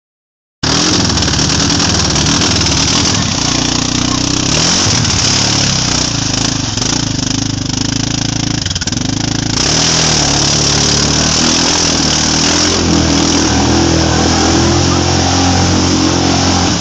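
Yamaha Grizzly 700 ATV's single-cylinder four-stroke engine running and revving off-road as the quad works through a muddy rut, its pitch rising and falling with the throttle.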